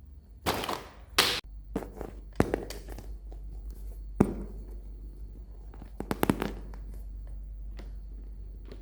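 Toy packaging being handled: a string of short, irregular crinkles and rustles with sharp taps and clicks, the sharpest a little after four seconds in. A steady low hum runs underneath.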